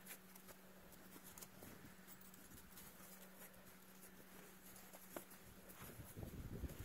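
Near silence: a faint steady hum with scattered light clicks, giving way to low rustling near the end.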